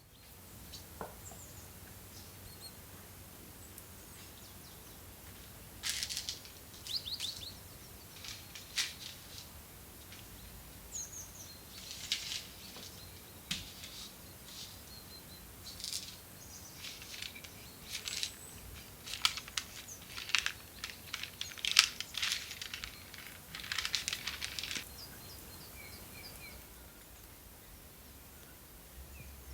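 Irregular bursts of short, crisp crackles. They start about six seconds in and stop a few seconds before the end, over a faint background of small bird chirps.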